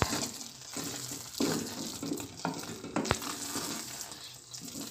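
Wooden spoon stirring thick vermicelli in milk in an aluminium pan, with a soft sizzle as the milk cooks down nearly dry, and a few sharp knocks of the spoon against the pan about halfway through.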